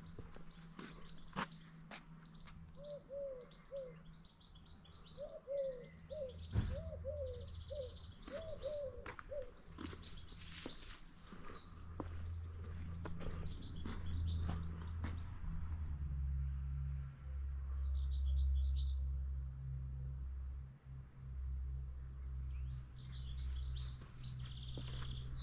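Small songbirds singing in short high bursts every few seconds, over footsteps. A low steady rumble comes in about halfway through and grows louder.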